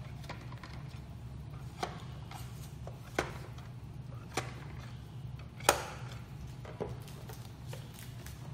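Sharp clicks and taps of a screwdriver on the screws and plastic bottom casing of a BYINTEK ML220 mini projector as the case screws are undone, about five spaced roughly a second apart, the loudest a little past the middle. A steady low hum runs underneath.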